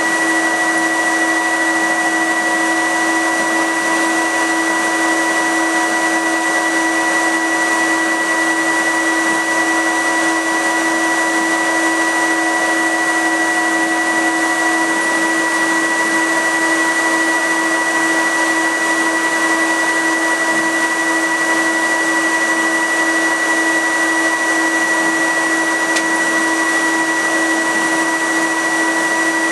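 Fume extraction and filter unit of a laser cutter running, really loud: a steady rushing blower noise with constant whining tones. One of the tones drops out about halfway through.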